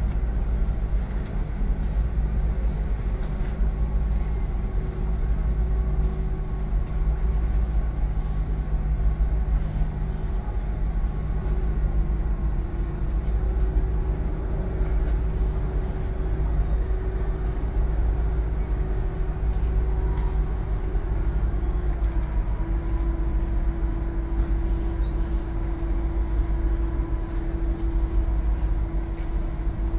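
Low, steady drone of ship and tug diesel engines during harbour manoeuvres, with hum tones that shift pitch slightly partway through.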